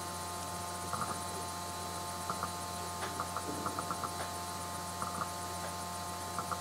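Steady electrical hum with a few faint, short clicks.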